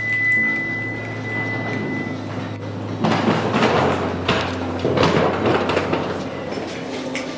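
Elevator arrival chime fading out, then the lift doors sliding and wheeled suitcases rolled over the threshold into the car, rattling with a few knocks, over a steady low hum.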